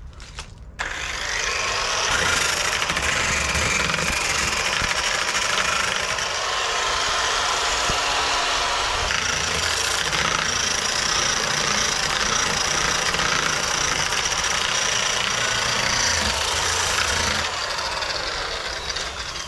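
Corded electric disc sander switched on and sanding the painted hull of an old boat, a steady high-pitched motor whine with grinding. It starts suddenly about a second in and dies away near the end as it is switched off.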